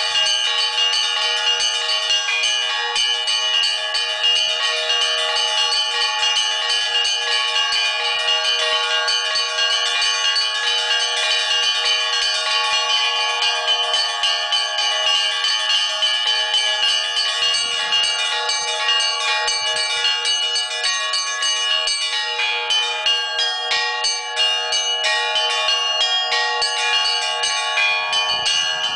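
Russian Orthodox bell ringing (zvon): several church bells struck by a ringer in a fast, continuous pattern, their tones overlapping and ringing on. A lower bell joins in about two-thirds of the way through.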